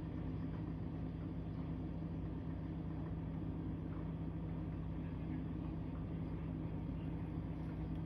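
Steady low mechanical hum with two constant tones and a faint background rumble, unchanging throughout.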